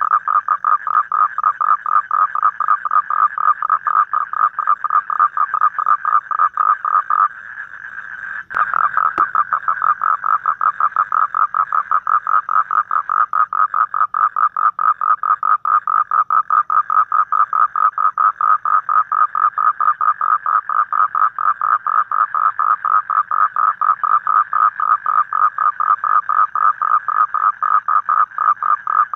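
Toad calling: a long, even train of rapid pulses that stops for about a second around seven seconds in, then starts again after a sharp click.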